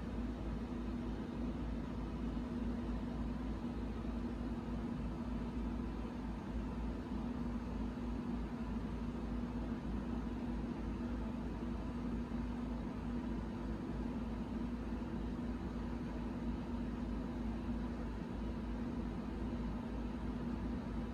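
A steady low mechanical hum with no distinct events, unchanging throughout.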